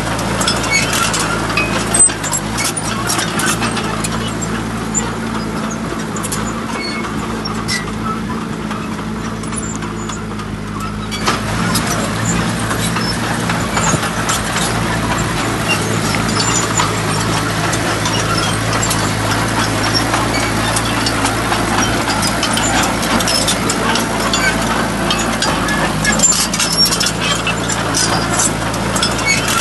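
Heavy vehicle's engine running steadily at an even speed, with scattered light clicks over it.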